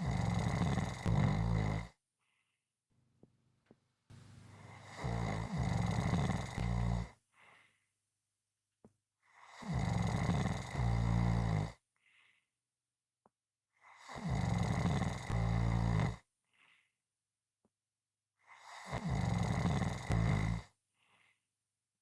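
A person snoring loudly in a steady rhythm: a snore about every four and a half seconds, each lasting around two seconds, with quiet pauses between breaths.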